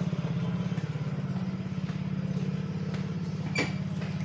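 An engine idling steadily with an even, rapid pulse. A single sharp click near the end.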